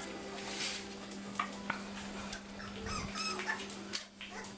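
Puppies whimpering and yipping in short high squeaks, mostly a little after three seconds in, over scattered light clicks and scuffling as they play.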